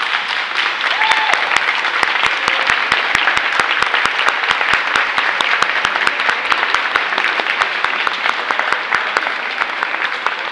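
Spectators applauding: steady clapping that eases off slightly near the end.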